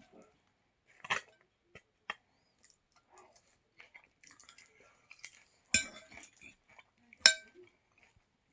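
Cutlery and dishes clinking and scraping while a taco is put together: small scattered taps throughout, and two sharp ringing clinks about six and seven seconds in.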